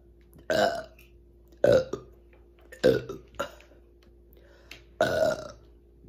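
A woman burping on command, without a drink: a run of short, loud burps about a second apart, then a longer one about five seconds in.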